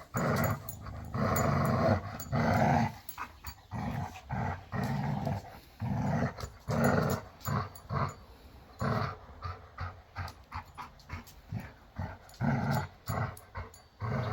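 Dog growling in repeated short bursts during a game of tug of war over a rope toy: play growling. Short clicks come in between the growls in the second half.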